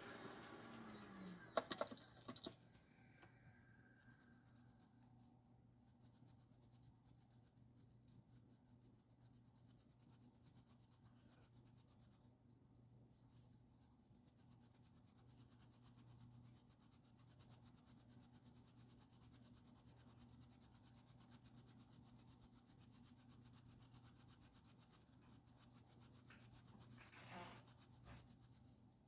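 Faint, steady scrubbing on a phone's circuit board as the area around a capacitor that had shorted to ground is cleaned, after a few sharp clicks in the first couple of seconds.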